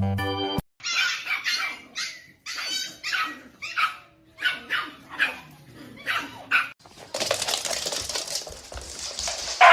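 A dog barking over and over in short, separate barks, about two a second for around six seconds. It follows a short snatch of organ music that cuts off just under a second in, and near the end the barking gives way to a steady noisy hiss.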